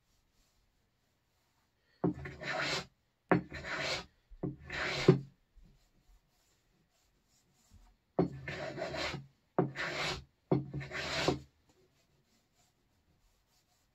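Hand plane shaving wood in six short strokes, two groups of three with a pause between, taking the edges down flush with thin cherry-veneer plywood.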